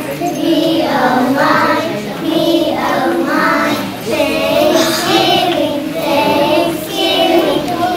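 A group of kindergarten children singing a song together in sustained phrases.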